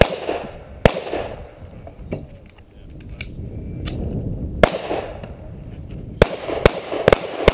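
Pistol shots fired during an IDPA stage, each with a short echo: two shots about a second apart, a pause of about three and a half seconds, then one shot followed by a quick string of four, about half a second apart.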